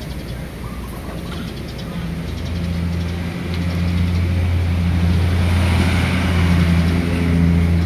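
A motor vehicle engine running: a steady low hum that grows louder about two seconds in.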